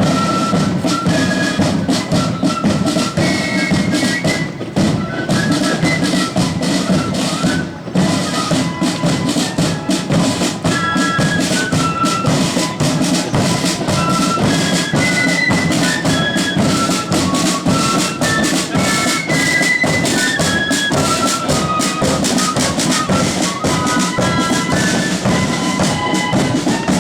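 Marching flute band playing in the 'blood and thunder' style: flutes carrying a quick tune over heavy bass drum and rapid snare drumming.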